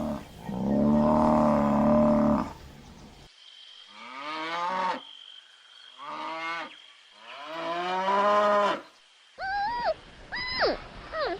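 Animal calls one after another: a long, steady, low call, then three calls falling in pitch, then several short, high calls that rise and fall.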